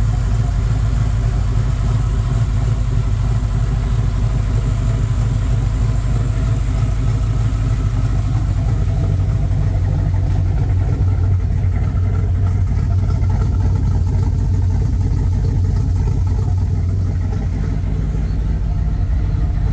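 Jeep engine with a freshly fitted intake running at a steady idle, an even low hum that holds constant throughout; it turns duller about halfway through as it is heard from beside the cab rather than over the engine bay.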